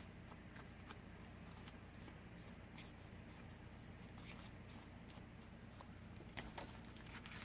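Faint rustles and light ticks of paper cutouts being handled and slid into a paper envelope, with a few sharper paper clicks near the end.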